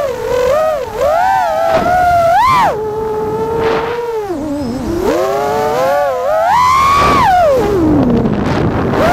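Brushless motors of a 5-inch FPV quad (Ethix Silk V4 2306, 2345 KV) whining as heard from the onboard camera. The pitch rises and falls with each throttle change, with one long drop in pitch about seven seconds in.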